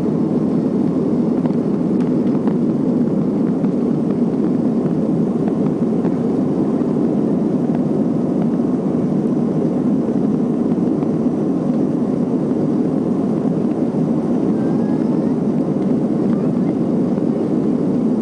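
Steady cabin noise of a Boeing 737-300 in flight: its CFM56 turbofan engines and the airflow around the fuselage making an even, low rushing sound that does not change.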